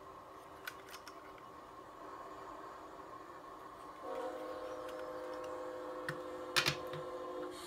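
A steady multi-note train horn chord starts about four seconds in and holds for about three and a half seconds before cutting off. A few light clicks come earlier, and a sharp knock as the plastic model locomotives are handled is the loudest sound, near the end of the horn.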